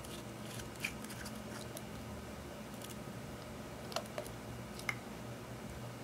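Small clicks and taps of a glass nail polish bottle and its cap being handled and unscrewed: one about a second in, two close together about four seconds in, and one more a second later, over a steady faint hiss.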